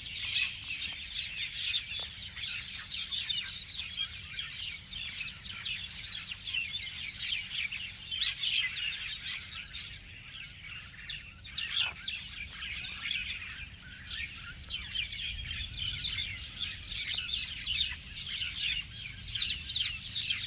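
Many small birds chirping at once: a dense, unbroken chorus of short, high calls overlapping throughout.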